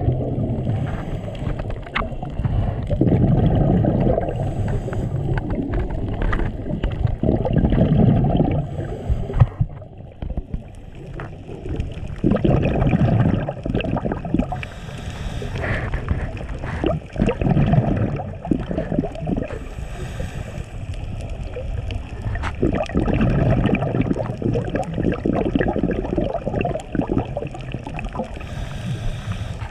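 Scuba diver breathing underwater through a regulator, heard from the diver's own position. Bubbles rumble out on each exhale every few seconds, and a short hiss comes between them on each inhale.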